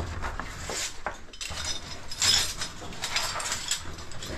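Caving gear clinking and scraping against rock, with shuffling and rubbing of clothing and gloves, as cavers climb down a tight crevice. The noises come unevenly, loudest about halfway through.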